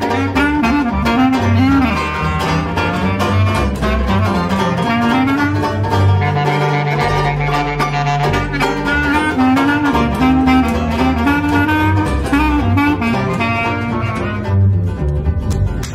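Traditional jazz trio playing: a clarinet carries a wavering melody over a strummed banjo and a plucked double bass. The clarinet drops out near the end, leaving banjo and bass.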